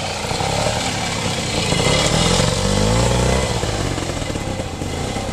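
Two-stroke trials motorcycle engine revving as the bike picks its way through a section. The revs climb about two seconds in and drop back a little after three seconds.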